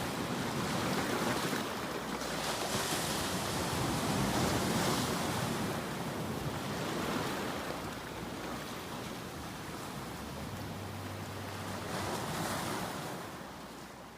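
Sea waves breaking in a steady rush of surf that swells and eases every few seconds, fading out near the end.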